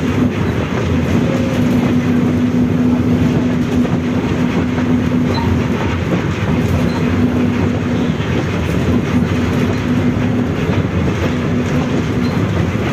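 Differential of a Volkswagen 17-230 OD bus growling loudly: a steady whine over the heavy rumble of the moving bus, dropping out briefly a few times, for longest near the end.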